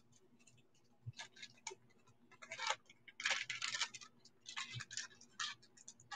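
Faint handling noises: short stretches of rustling packaging mixed with small clicks and clinks of jewelry being handled.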